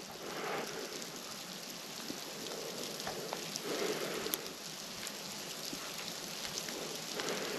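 Small hail falling, a steady patter of many fine ticks.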